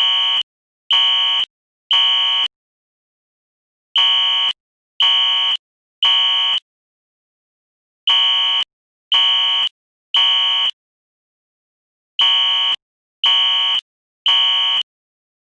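Fire alarm horn sounding in the temporal-three evacuation pattern: three half-second buzzing blasts about a second apart, then a short pause, the group repeating four times.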